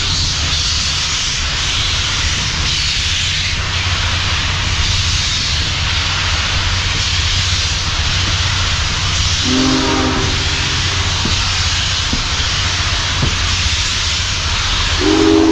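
Union Pacific Big Boy 4014's steam train rolling along with a steady rush of hiss and a low rumble. The locomotive's chime steam whistle sounds one short blast about ten seconds in, and starts again right at the end.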